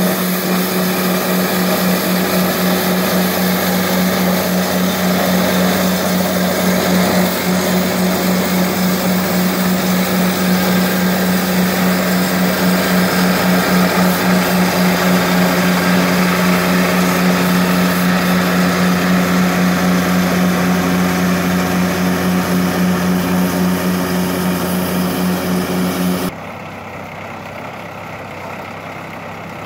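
Walker MDGHS mower's Kubota D722 three-cylinder diesel engine running steadily while its front rotary broom sweeps a concrete street, a loud steady drone. Near the end the sound suddenly drops to a noticeably quieter level.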